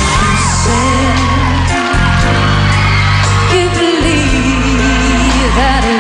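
A woman singing a pop ballad into a microphone over band accompaniment, her held notes wavering with vibrato above sustained low notes.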